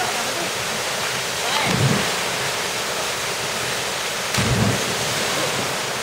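Steady rushing of a waterfall pouring into a rock pool. A faint voice is heard about two seconds in, and two brief low rumbles come at about two and four and a half seconds.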